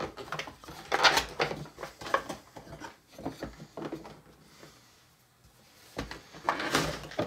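Hard plastic parts of a Play-Doh Burger Builder toy being handled: a series of clicks and knocks as the shape-selector strip and the red extruder handle are worked, with a brief quiet spell just past the middle.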